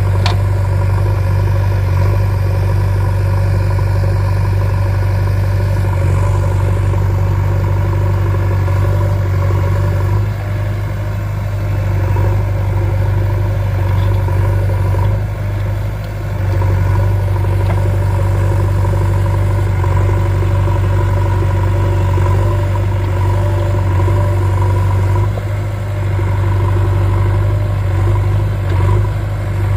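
JCB backhoe loader's diesel engine running steadily at a constant speed.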